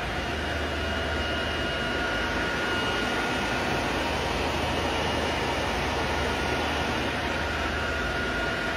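Cooling fans of an HP BladeSystem c7000 blade enclosure and its surrounding servers running: a steady rush of air with a faint high whine and a low hum.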